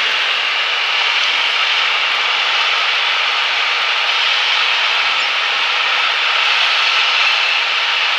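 Single-engine Cessna's piston engine and propeller running steadily on final approach, heard from inside the cockpit as a loud, even drone and hiss.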